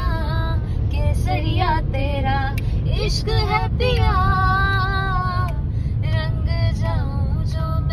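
A song with a woman singing, including a long held note about halfway through, over the steady low rumble of a car driving.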